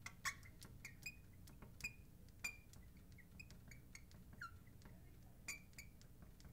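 Faint squeaks and taps of a marker pen writing on a glass lightboard: many short, irregular high squeaks and clicks as the letters are drawn.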